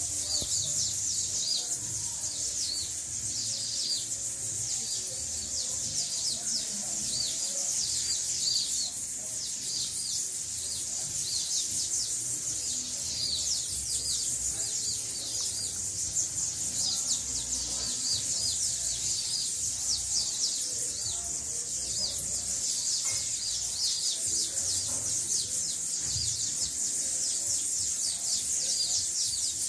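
A flock of small birds chirping without pause, many short high calls overlapping one another.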